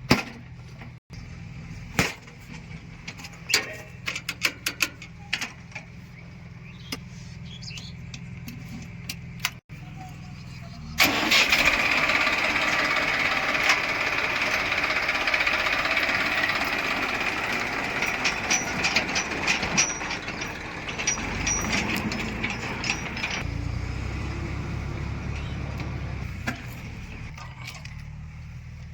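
Heavy diesel engine running low and steady with scattered clicks and knocks. About eleven seconds in it revs up hard and stays loud for about twelve seconds, then drops back to a lower rumble.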